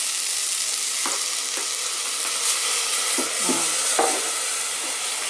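Diced beets stewing in a steel pot with a little water, sizzling steadily, with a few light knocks about one, three and four seconds in.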